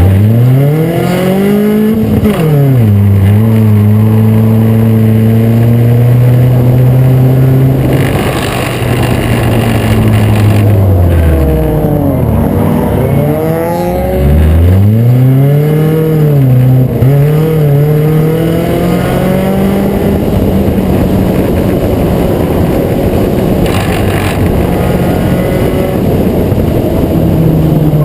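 Acura Integra race car's four-cylinder engine running hard, loud throughout. Its pitch climbs, drops sharply a couple of seconds in, holds steady, falls away around the middle as the driver lifts off, then climbs again and holds steady.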